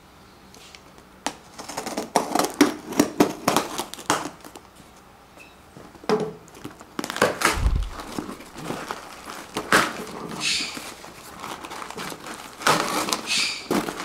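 Cardboard shipping box being opened: packing tape cut and pulled off, with many short scrapes, crinkling and tearing sounds. There is a dull thump just past halfway.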